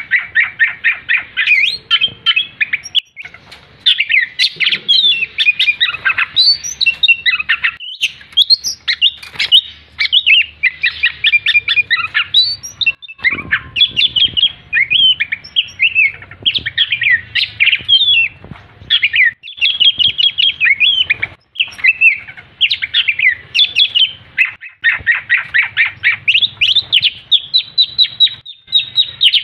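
Sumatran-type oriental magpie-robin (kacer) singing a long, fast run of varied whistles and chattering notes, broken by a few short pauses.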